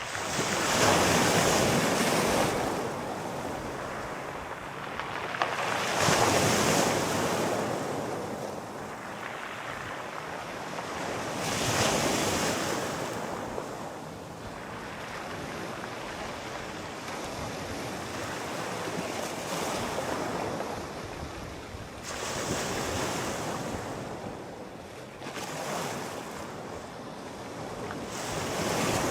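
Sea waves breaking and washing in, each wave swelling into a rushing surge and falling back, about every five to six seconds, with a steady hiss of surf in between.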